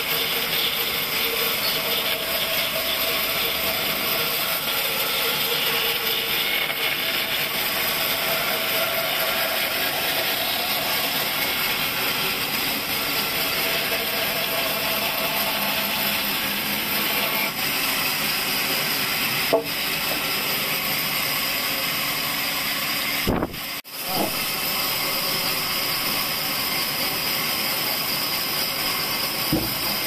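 Large vertical band saw cutting lengthwise through a thick pine beam: a steady, even hiss of the blade in the wood. About three-quarters of the way through there is a sudden short drop-out.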